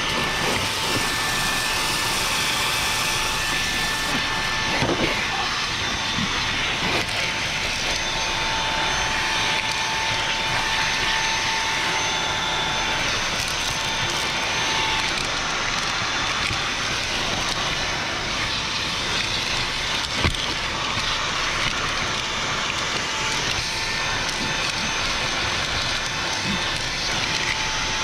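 Ecolumix cordless handheld vacuum cleaner running steadily with a high motor whine, its bare nozzle sucking sand and grit from a car's carpeted floor mat, with occasional clicks as grit is drawn in.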